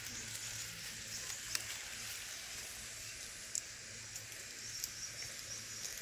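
Steady high hiss of garden ambience over a low hum, broken by a few short sharp clicks, about a second and a half in and again at three and a half seconds. No parrot calls are heard.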